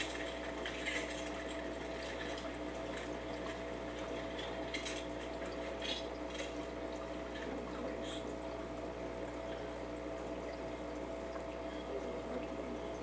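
Aquarium water bubbling and trickling from the tank's air bubbles, over a steady hum, with a few faint ticks.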